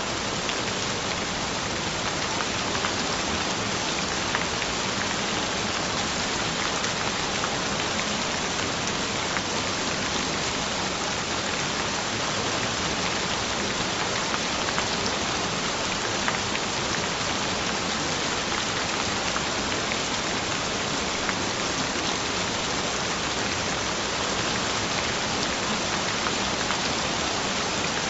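Steady gentle rain falling on a surface, a continuous even hiss with faint scattered drop ticks.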